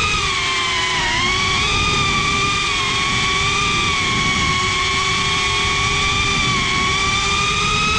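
FPV cinewhoop drone's brushless motors and ducted propellers whining steadily, heard from a camera mounted on the drone itself; the pitch dips briefly about a second in as the throttle eases, then holds.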